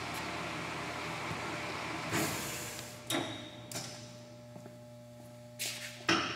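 A Terrier 22 gap-bed lathe running with a steady mechanical noise that drops away about two seconds in after a brief loud rush. A few clunks and short rushes follow over a quieter steady hum.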